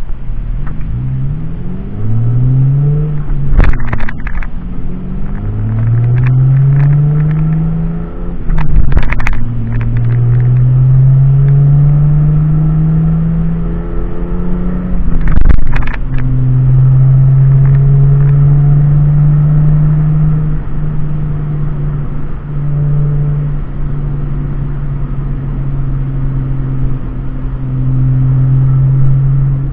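Lexus IS300's 2JZ straight-six and its exhaust, heard from inside the cabin, pulling up through the gears. Engine speed climbs and drops back three times at the upshifts, with a sharp crack at each shift, then holds steady at cruise for the last dozen seconds or so.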